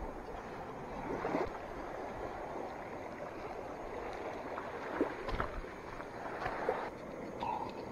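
Steady wash of small waves at the shoreline, with a few sharp clicks and taps of a knife against barnacle-crusted rock and shell.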